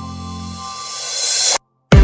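Electronic background music: a held chord fades while a rising hiss-like sweep builds, then cuts off suddenly about a second and a half in, leaving a brief silence.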